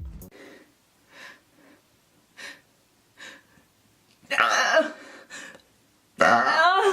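A person gasping loudly twice, first about four seconds in and again near the end, with a few faint breaths before.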